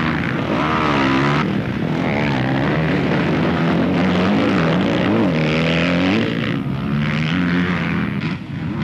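Motocross bike engines revving hard, their pitch climbing and dropping again and again as the riders race and shift on the dirt track. The sound changes abruptly about a second and a half in.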